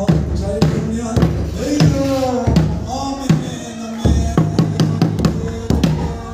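Singing of a Mizo spiritual song (thlarau lam zai) with a drum beating along in a loose, repeated beat.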